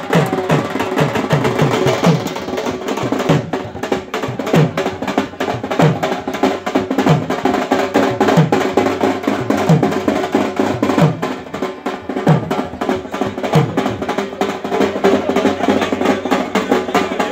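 Drums beaten in a fast rolling rhythm, with deep strokes that fall about once a second, over a busy background.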